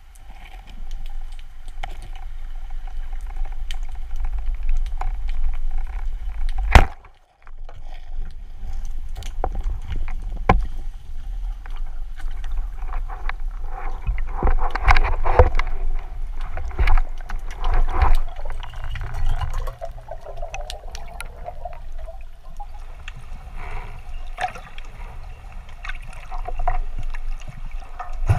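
Underwater sound picked up through a camera's waterproof housing while diving: a steady low rumble of moving water with scattered clicks and knocks. One sharp, very loud knock comes about seven seconds in, and a cluster of knocks and clatter comes a little past the middle.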